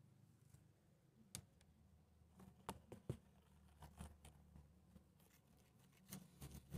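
Near silence with a few faint, scattered clicks and taps: a pink plastic clothes hanger knocked against a tile floor by a playing kitten.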